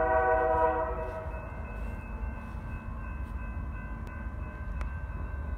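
Distant freight locomotive's air horn sounding a chord in one blast that fades out about a second and a half in, leaving a steady low rumble.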